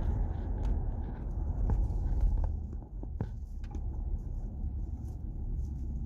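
Low, steady rumble of a 2014 Nissan Patrol Y62 on the road, heard from inside the vehicle, with a few faint clicks. No bearing hum can be picked out: the right rear hub bearing is newly replaced.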